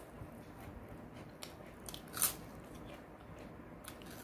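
Biting and chewing crisp fried papad (poppadom) with several sharp crunches; the loudest comes a little past halfway.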